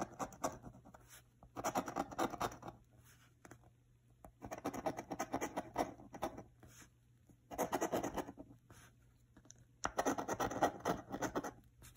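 A coin scraping the coating off a paper scratch-off lottery ticket, in about five short bouts of rasping with pauses between.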